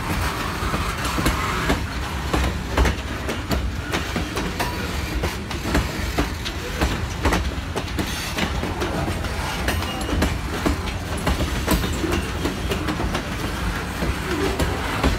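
Freight train of covered hopper cars rolling past close by: a steady rumble of wheels on rail with irregular clicks and clacks as the wheels cross rail joints.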